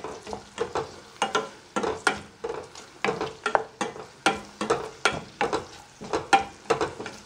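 A wooden spoon scrapes and knocks against a stainless-steel pan, about three strokes a second, stirring sliced coconut frying in ghee. A faint sizzle runs underneath.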